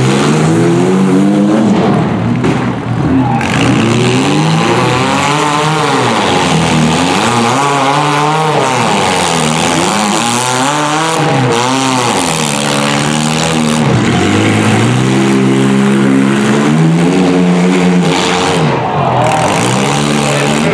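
Small demolition derby cars' engines revving hard and falling back over and over, several at once. Their pitch swoops up and down every second or two as the cars drive and ram each other.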